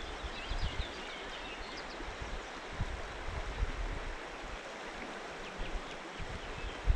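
A river running over shallow gravel riffles: a steady rushing of water, with a few short high chirps from a small bird in the first two seconds and again near the end.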